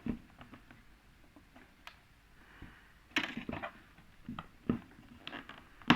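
Scattered clicks and light knocks of plastic clips and parts being handled while an LED TV is taken apart. The clicks are sparse at first and come in quick clusters from about three seconds in.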